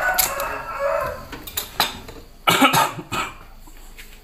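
Peeled cassava pieces being rinsed and handled in a plastic colander in a stainless-steel sink. There is a loud, short burst about two and a half seconds in.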